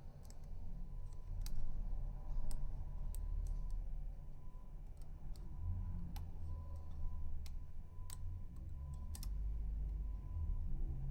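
Irregular sharp metal clicks from a rotor pick working the pins inside a six-pin FAC lock, over a low handling rumble.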